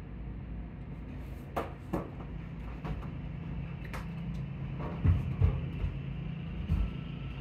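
Steady low engine drone, muffled through a closed window, with about seven sharp knocks and clicks close to the microphone; the loudest are a pair about five seconds in.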